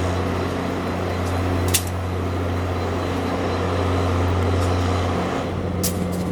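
Diesel locomotive idling with a steady low hum; the tone shifts slightly about five and a half seconds in. A couple of sharp clicks sound over it.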